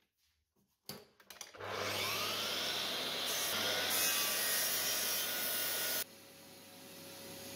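Makita miter saw starting up with a few clicks, its motor whining up to speed as the blade cuts through the end of a wooden door jamb to square it. About six seconds in the sound drops suddenly to a quieter steady whir.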